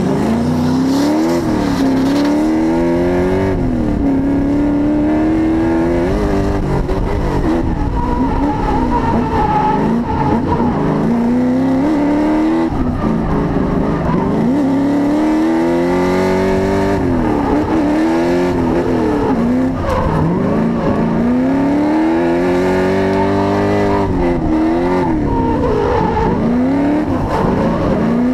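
Twin-turbo LS1 V8 in an LS-swapped Nissan Silvia drift car, pulling away from a standstill and then revving up and dropping off again and again as the car drifts. Tyres squeal at times.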